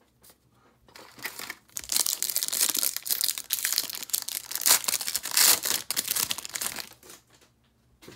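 Foil wrapper of an Upper Deck Marvel Annual 2021-22 hobby pack being torn open and crinkled, starting about a second in and going on for about six seconds before stopping.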